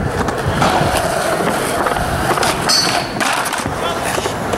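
Skateboard wheels rolling over a concrete skatepark deck, with a few sharp clacks of the board about halfway through and a brief high squeak among them.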